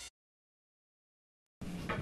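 The last of a fading intro music track cuts off at the start, followed by about a second and a half of dead silence. Faint room noise comes in near the end.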